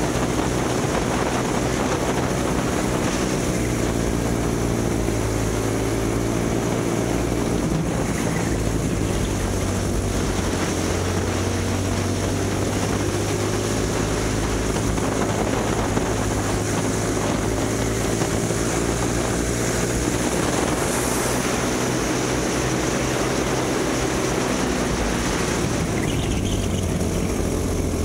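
A kid kart's small engine running continuously under racing load, its pitch falling and rising again several times as it slows for corners and speeds up out of them.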